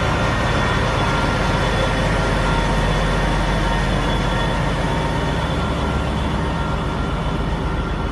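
Diesel locomotive rolling slowly past close by at the head of a train of vintage coaches, its engine running with a steady low rumble and a steady whine above it, easing off slightly as it moves away.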